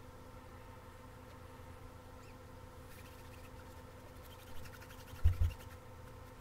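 Foam brush dragged over the faceted resin drills of a diamond painting as sealant is spread, in sped-up audio: faint passes of rapid fine scratching over a steady hum. Two low thumps come close together a little after five seconds in, the loudest sounds.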